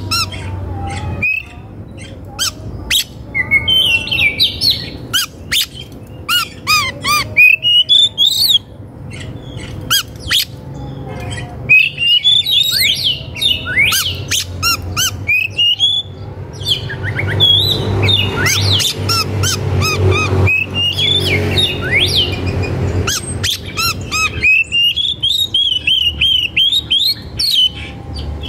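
A bird chirping, whistling and squawking in quick, varied notes, over a low steady hum.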